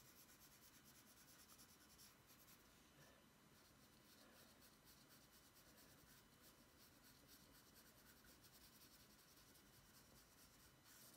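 Very faint scratching of a colour pencil shading on paper in quick repeated strokes.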